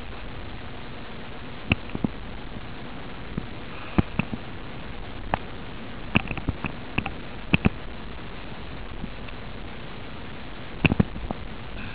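Skiing on snow heard through a body-worn camera: a steady hiss with irregular sharp clicks and knocks, in a cluster around the middle and again near the end.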